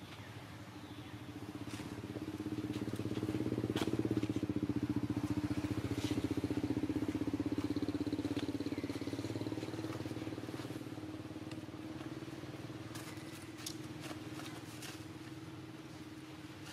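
A motor vehicle engine running steadily, growing louder to a peak a few seconds in and then slowly fading, as it passes by. A few faint sharp clicks sound over it.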